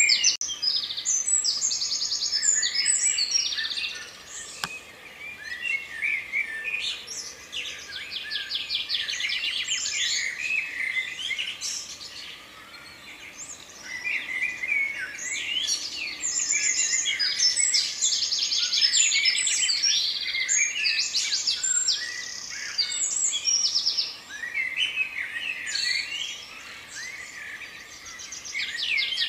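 A chorus of many small birds chirping and singing at once, full of fast trills of rapidly repeated notes, swelling and fading in waves.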